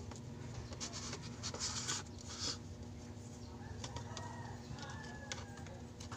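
Screwdriver working the screws out of a TV Plus set-top box's plastic case: short scraping clicks and rasps, bunched between about half a second and two and a half seconds in, with a few fainter clicks later.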